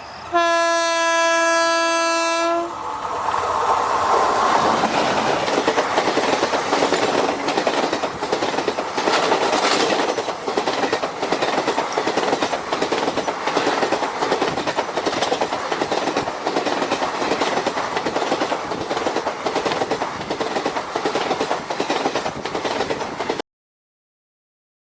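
A train horn sounds one steady note for about two seconds, then the train runs on with a continuous rushing rumble and a fast clickety-clack of wheels over rail joints. The sound cuts off suddenly near the end.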